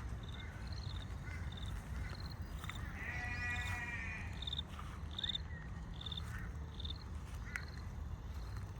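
Australian creek-side wildlife: short high call notes repeated about twice a second, with one longer, wavering, harsh call about three seconds in, over a steady low rumble.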